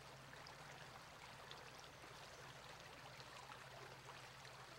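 Near silence: faint steady hiss with a low hum.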